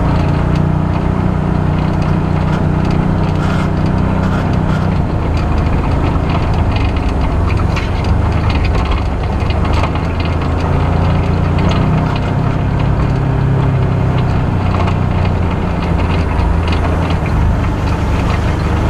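Side-by-side off-road vehicle's engine running as it drives along a bumpy dirt trail, its pitch rising and falling with the throttle, over a steady clatter of knocks and rattles from the rough track.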